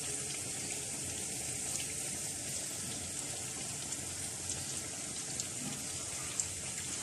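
A steady hiss with a few faint scattered crackles.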